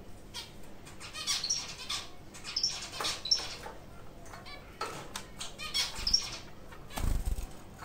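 White zebra finches in a cage giving short high chirping calls several times, with small clicks and rustles as they hop about. About seven seconds in there is a brief burst of wing flapping as one bird flies.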